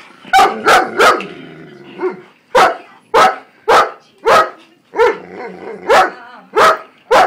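A dog barking over and over during rough play with another dog, a steady run of short, sharp barks about every half second.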